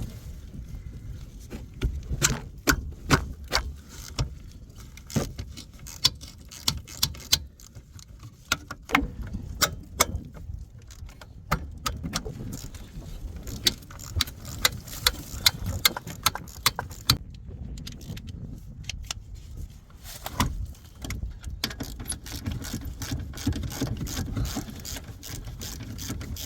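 Metal hand tools clinking and clanking irregularly against the car's wheel hub and suspension parts as they are unbolted during a wheel-bearing removal, over a low steady rumble.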